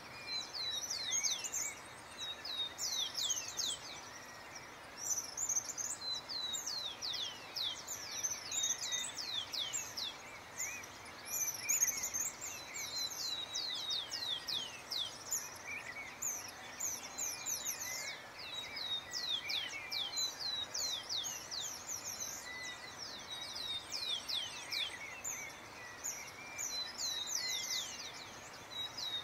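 A chorus of small birds singing: many quick, high chirps, each falling in pitch, overlapping almost without a break over a steady low hiss.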